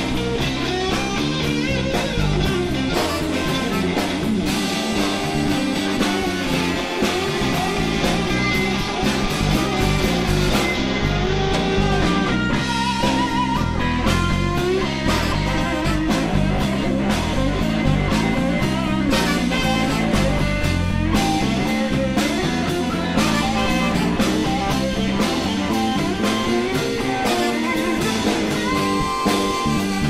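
Live blues-rock band playing an instrumental passage: electric guitars over bass guitar and drums.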